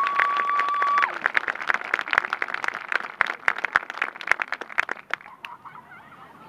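Audience applauding, with one long, steady whistle that slides up and is held until about a second in. The clapping thins out and dies away about five seconds in.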